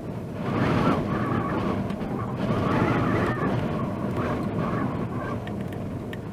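Wind buffeting the microphone: a rough, gusting rumble that swells and fades.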